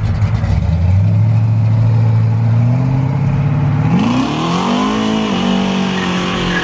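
Engine of a compact Chevrolet pickup pulling away, running at low, slowly climbing revs, then revving up in a rising sweep about four seconds in and holding a higher pitch.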